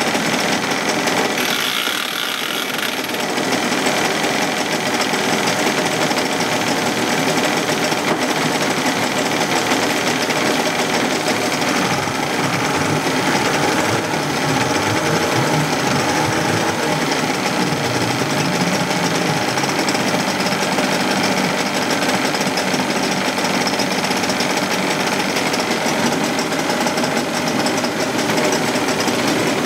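1980s Suzuki DT25 two-stroke outboard running on a test stand, dipping briefly about two seconds in, then its speed wavering up and down through the middle as the throttle is worked. It is running rough, not as smooth as it should.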